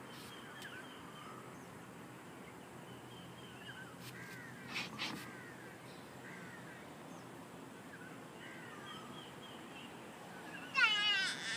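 Wild birds chirping with short rising and falling calls, then a loud, rapid run of harsh falling notes near the end.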